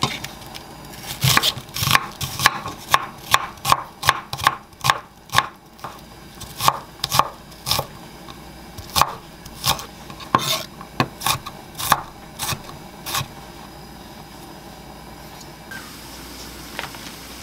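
Chef's knife chopping onion on a wooden cutting board: a run of sharp knocks of the blade on the board, about two to three a second, stopping a few seconds before the end.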